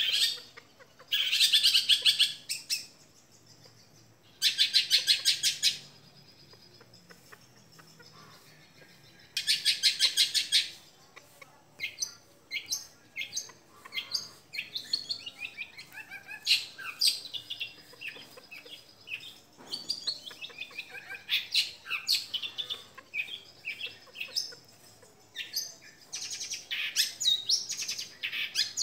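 Young long-tailed shrike singing: three rapid, harsh trills of about a second and a half each in the first ten seconds, then a busy run of short chirps and whistled glides.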